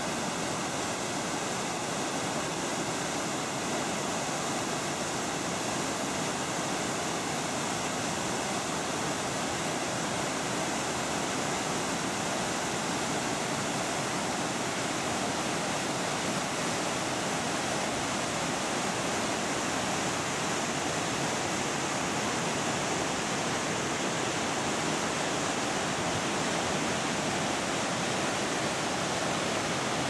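Waterfall pouring over a weir-like ledge and crashing into a churning, rocky pool: a steady, even rush of white water.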